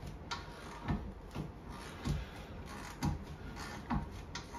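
Socket wrench turning the draw bolt of a bearing press tool, a short click or creak with each stroke, about one or two a second, as a new rear wheel bearing is pressed into a VW Transporter's hub.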